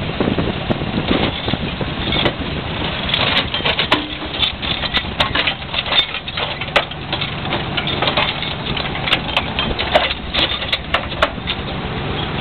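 Cable-operated dragline excavator running with a steady low rumble, overlaid from about three seconds in until near the end by a run of sharp metallic clicks, clanks and rattles from the chains and rigging of the swinging bucket.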